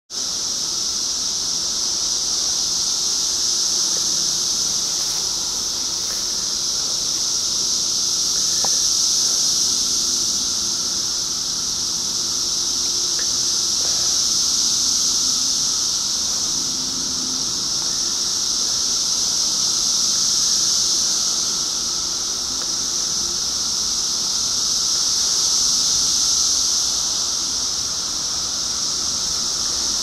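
Dense chorus of periodical cicadas: a loud, continuous, high-pitched buzzing hiss that slowly swells and eases every five or six seconds.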